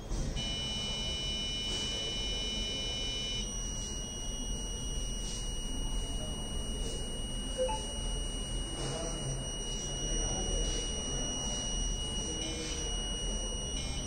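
Electronic buzzer on an Arduino Nano Morse-code circuit sounding a steady high-pitched tone. The first tone changes to a cleaner held tone about three and a half seconds in, which continues with a short break near the end.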